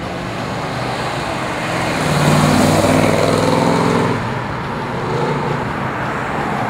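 1966 Ford Mustang GT fastback's 289 V8 accelerating past, its exhaust note building to its loudest about two seconds in, then easing only a little as the car pulls away.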